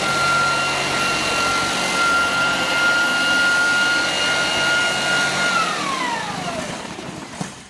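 Hiretech HTF-2 orbital floor sander running with its added sand-filled weight: a steady motor whine over sanding noise. About five and a half seconds in, the motor is switched off and its pitch falls as it winds down to a stop, with a light knock near the end.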